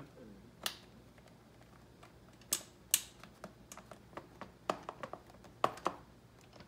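Scattered sharp clicks and taps, about eight at irregular spacing, from hand tools and small bolts being handled against ATV plastic bodywork while it is being bolted on.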